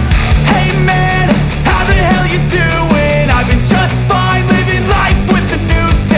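Loud rock background music with heavy drums and distorted guitar, with a melody line that may be singing.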